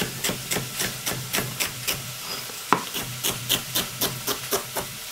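Chef's knife chopping a celery stalk on a plastic cutting board: quick, even strokes about four a second that stop shortly before the end.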